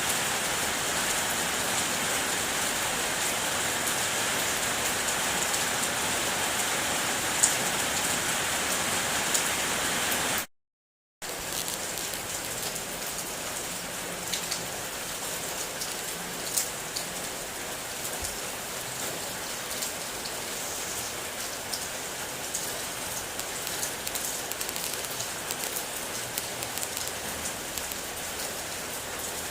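Steady rain falling on a car, with individual drops ticking sharply now and then. The sound cuts out completely for under a second about a third of the way in, then comes back slightly quieter.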